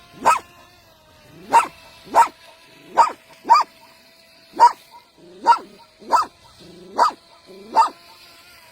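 A dog barking repeatedly, about ten short sharp barks each under a second apart.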